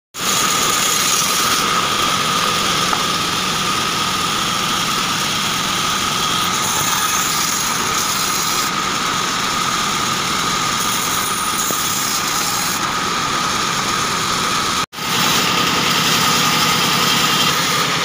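Band saw running steadily with a constant whine, its blade cutting through short blocks of wood. There is a split-second gap in the sound about fifteen seconds in.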